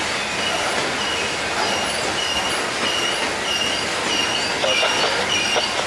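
Freight train of open-top hopper cars rolling past with a steady rumble. Its wheels give short, high squeals about twice a second, growing stronger toward the end, with a few knocks from the trucks.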